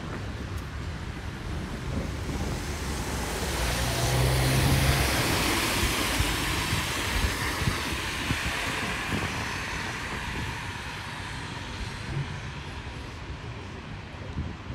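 A car driving past on a wet road, its tyre hiss swelling and then fading away.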